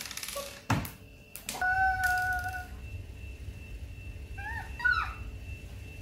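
Slime being squeezed and pulled by hand, with a few short wet squelches, then a held squeaky note lasting about a second and a couple of brief warbling squeaks near the end.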